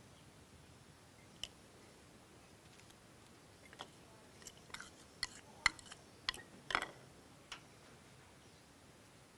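Faint, scattered light clicks and taps, about a dozen, mostly bunched between about four and seven and a half seconds in, from hands handling spring roll wrappers and filling on the work surface.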